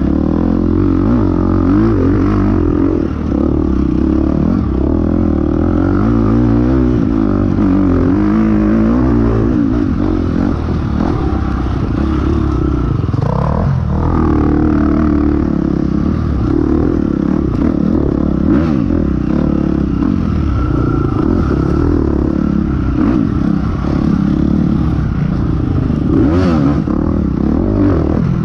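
Off-road dirt bike engine heard from on board, revving up and down over and over as it is ridden hard along a twisting dirt trail.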